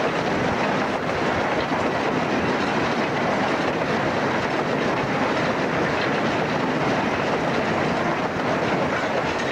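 LNER A3 Pacific steam locomotive 60103 Flying Scotsman running at speed, heard from its footplate: a steady, unbroken noise of the moving engine and its wheels on the rails.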